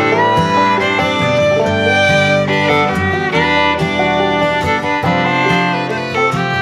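Instrumental background music, led by a fiddle over guitar.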